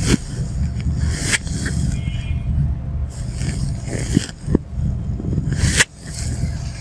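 Clip-on microphone rubbing against clothing and the bed as a man lying face down shifts and lifts his upper body, giving a steady low rumble with a few sharp scrapes, about a second and a half in and again near the end.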